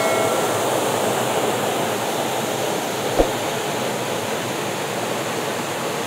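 Small waterfall cascades pouring over rock steps into a pool, a steady rush of falling water. There is one brief knock about three seconds in.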